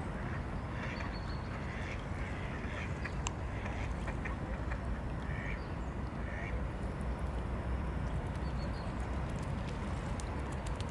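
Mallard ducks quacking in short calls, mostly in the first two-thirds, over a steady low background rumble.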